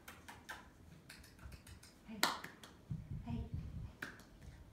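A person snapping fingers and clapping to call a puppy: a quick string of sharp snaps, the loudest a little over two seconds in, and one more near the end.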